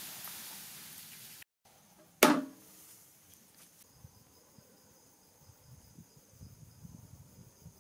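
Stew simmering in a large iron wok with a hiss that cuts off about a second and a half in, then one loud sharp knock. After it come the faint low rumble and small crackles of the wood fire burning under the wok, with a faint steady insect drone.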